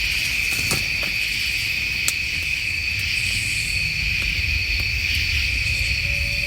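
Chorus of insects such as crickets trilling steadily and high over a low background rumble, with a couple of faint clicks. A faint low tone comes in near the end.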